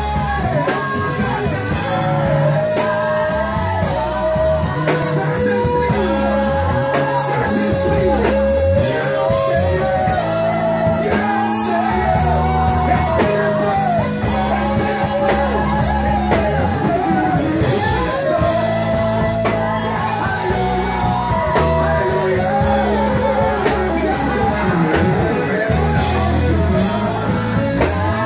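Live band rehearsal: a lead singer and a group of backing singers singing together over electric keyboard, bass guitar and drum kit, with steady bass notes and regular cymbal strokes.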